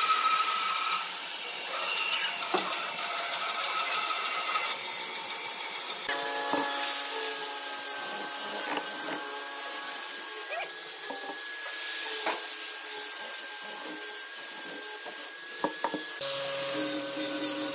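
Band saw cutting through a thick pine block, then, about six seconds in, an angle grinder fitted with a sanding drum running with a steady high whine while its drum rubs against curved pine.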